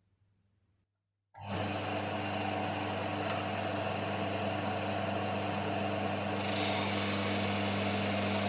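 Benchtop disc-and-belt sander switched on about a second in, its motor starting abruptly and then running with a steady hum. A few seconds later a metal angle piece is pressed against the spinning sanding disc, adding a harsh grinding hiss as its edges are dressed.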